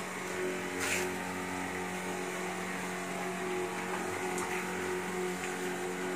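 Disinfectant sprayer's pump motor humming steadily while the wand's nozzle mists spray against a wall, with one brief hiss or rustle about a second in.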